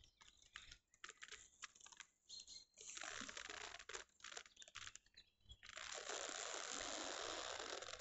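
Leather jacket creaking and crackling close to the camera's microphone: a run of faint crackles and clicks, broken by stretches of steady rustling.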